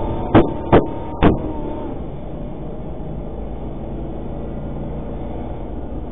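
Three sharp gunshots in the first second and a half, heard from inside the cab of an armoured cash-in-transit vehicle, the end of a volley of fire. After them comes the steady engine and road noise of the vehicle driving at speed.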